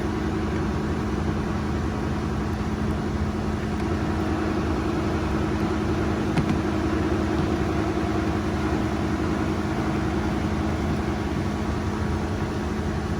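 A steady mechanical hum with a low drone that holds even throughout.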